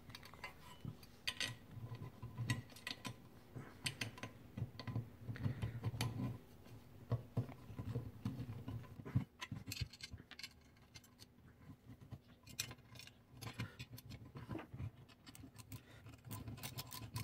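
Small screws being driven by hand with a screwdriver into a stainless steel regulator gauge guard: light, irregular metallic clicks and clinks with some handling rumble.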